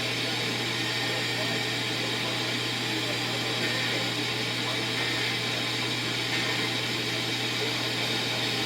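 Steady hiss with an even low hum underneath, level throughout with no distinct events.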